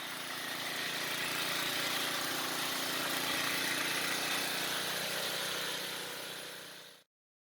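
Gas-powered concrete power trowel running steadily, its engine hum mixed with a strong hiss. It cuts off suddenly near the end.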